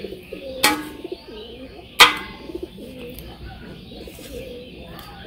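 Doves cooing over and over in the background. Two sharp metallic clanks, under a second in and about two seconds in, the second much the louder and ringing briefly: the stainless steel bowls being knocked as fish are handled and put in.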